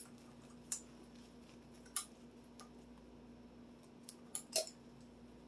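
Scattered sharp clicks and light metallic clinks of bicycle rack parts and tools being handled during disassembly, about six in all, the loudest two close together near the end. A steady low hum runs underneath.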